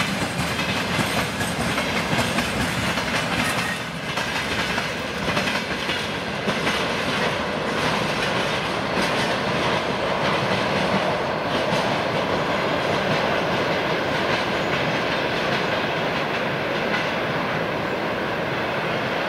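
Tank wagons of a freight train rolling past, their wheels clattering over the rail joints; about halfway through the clicks give way to a steady rumble.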